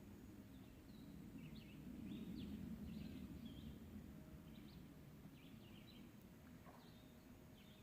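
Faint songbird chirps, many short calls scattered through, over a low steady rumble that swells a little about two to three seconds in.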